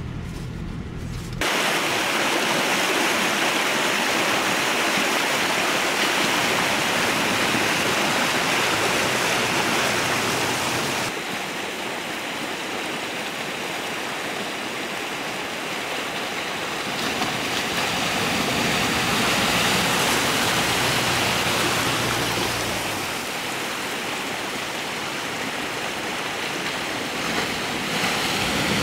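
A vehicle engine running low for the first second and a half, then an abrupt change to the steady rush of fast-flowing stream water, which swells and eases slightly now and then.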